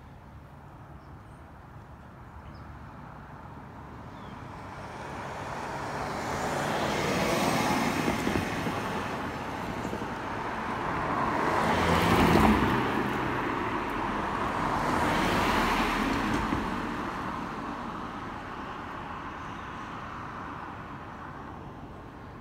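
Road vehicles passing close by in turn. Tyre and engine noise swells and fades three times, loudest about halfway through.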